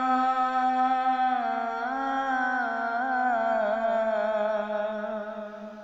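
A man singing one long held note, ornamented with wavering turns in pitch through the middle, that fades away near the end.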